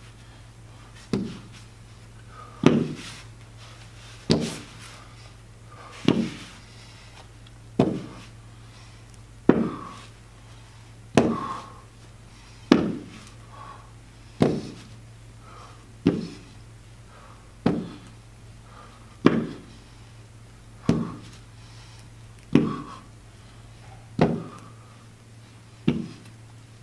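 Dumbbells knocking down on the gym floor during plank rows, one knock every second and a half to two seconds as each weight is rowed up and set back down, over a steady low hum.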